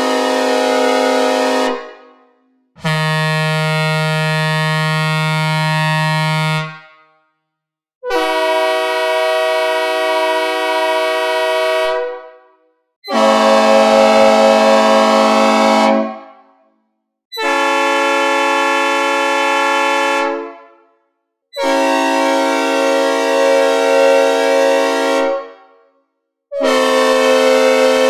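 Synthesizer recreations of diesel locomotive air horns, played one after another: seven steady multi-note horn chords, each held three to four seconds with a gap of about a second between them. They imitate, in turn, a K5LLA, an A-200, an S3K, a P01235, a P3, a P5A and an S5T horn. The second one has a much lower bottom note than the rest.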